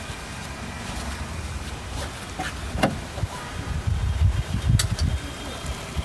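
Volkswagen Polo driver's seat belt being pulled across and buckled: the webbing draws out of the retractor, with a couple of sharp clicks about three and five seconds in as the latch plate goes into the buckle, over a low rumble.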